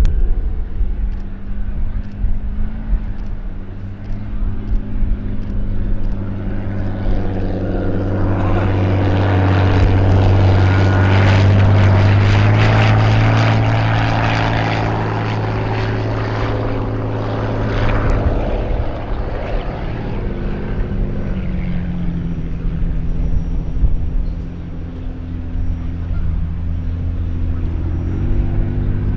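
Classic unlimited hydroplane's engine running with a steady low drone. It gets louder toward the middle, then eases off with a small drop in pitch about three-quarters of the way through.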